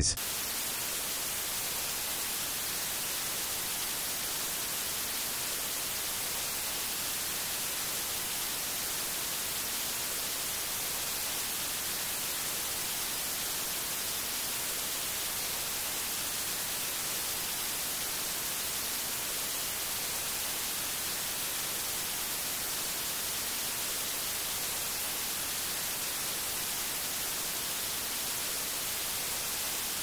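Steady white noise: an even, unchanging hiss, brightest in the treble.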